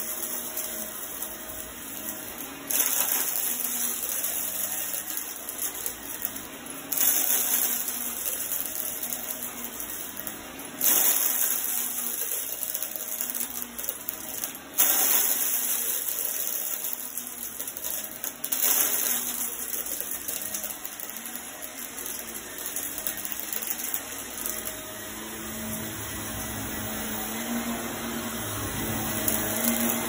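Shark upright vacuum cleaner running on a rug with its brush roll spinning. The steady suction rush swells sharply every four seconds or so as the machine is worked back and forth, then eases again.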